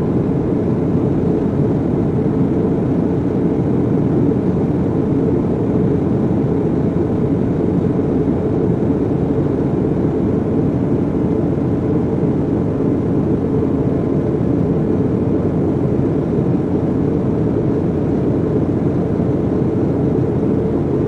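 A steady, loud, low rumbling noise with no distinct pitch or rhythm, starting abruptly.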